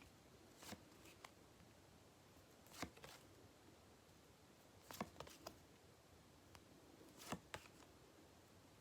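Near silence: room tone with a few faint, short clicks and taps scattered through it, two or three at a time.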